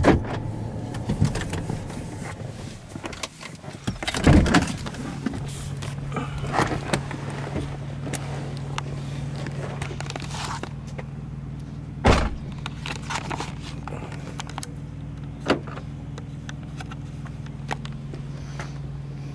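A car being brought to a stop and parked. Its engine then runs on at a steady low hum, with a loud knock about four seconds in and a few sharp clicks and knocks from inside the car, the loudest about twelve seconds in.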